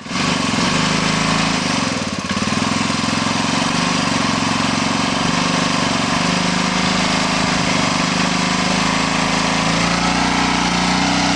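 ATV engine running steadily and loud, with a brief dip about two seconds in.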